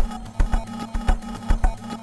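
Circuit-bent Roland TR-626 drum machine playing a glitchy electronic drum pattern: deep kick thumps and sharp clicks, about three strong hits a second, over a steady droning tone.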